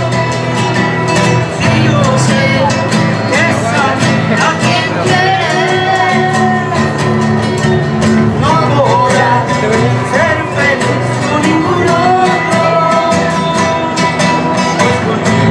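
A small live band playing a song: a sung melody over sustained instrument notes and a steady beat.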